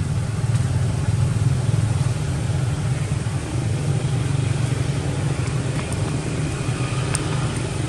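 Steady low rumble of a running motor vehicle engine, with a few faint ticks in the second half.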